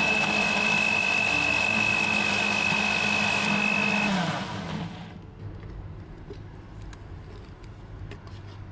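Philips countertop blender's motor running steadily, puréeing a spice paste with a little water, then switched off about four seconds in and spinning down. Faint clicks follow.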